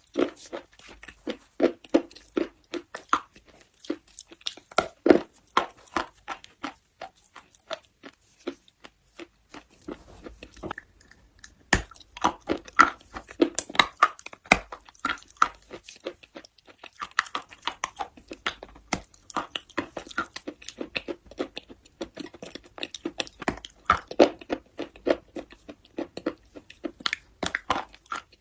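Close-miked chewing of brittle slate: a dense, rapid run of sharp crunches and crackles as the pieces are bitten and ground between the teeth, with a brief pause about ten seconds in.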